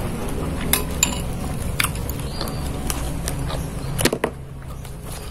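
Metal spoon clinking against a glass bowl several times during eating, over a steady low hum.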